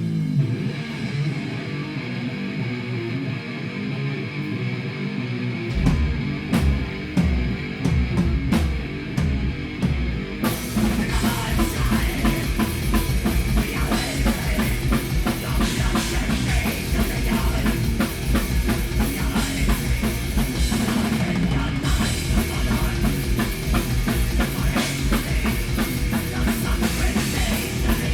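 Live rock band playing loud, distorted electric guitar at first, with bass and drums coming in about six seconds in. The full band with crashing cymbals plays from about ten seconds on.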